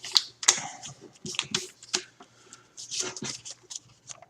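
Sheet of copy paper rustling and crackling as it is folded and the crease pressed down, in a series of short, irregular crisp scrapes.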